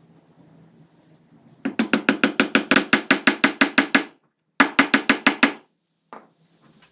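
Small wooden mallet tapping a glued wooden dowel down into its hole: two runs of rapid, even taps, about seven a second, with a short pause between them, then one single knock near the end.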